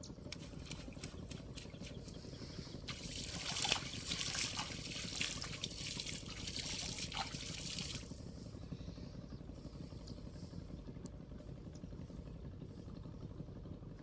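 Water splashing and trickling for about five seconds, starting about three seconds in and stopping near the eight-second mark, over a steady low rumble.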